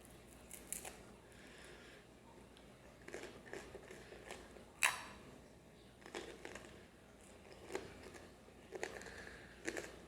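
Scattered clicks, knocks and crinkly handling noises, with one sharp knock about five seconds in.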